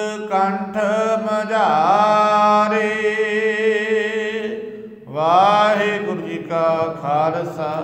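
A man chanting Gurbani in a sing-song recitation: phrases of held, gliding notes, one long wavering note in the middle and a short breath before the next phrase, over a steady low drone.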